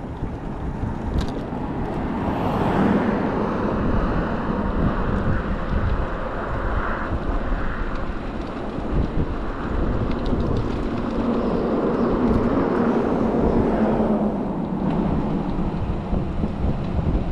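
Wind buffeting the microphone outdoors, over a rushing noise that swells and fades twice.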